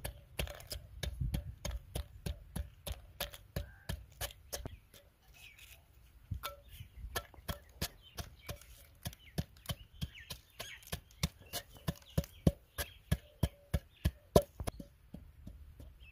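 Long wooden pestle pounding Oreo biscuits in a terracotta clay bowl, crushing them to crumbs: a quick run of knocks, about three a second, with a short pause about five seconds in, louder near the end.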